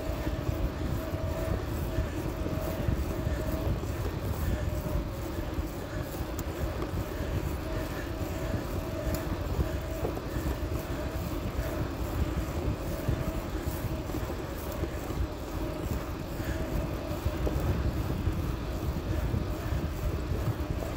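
Bicycle rolling along a paved trail, heard through a phone mounted on its handlebar: a steady rumble of tyres on asphalt and handlebar vibration, with a faint hum that comes and goes.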